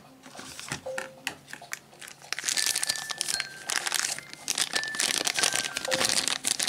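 Clear plastic wrapper crinkling loudly as it is handled and pulled open around a die-cast toy car, after a few light clicks in the first two seconds.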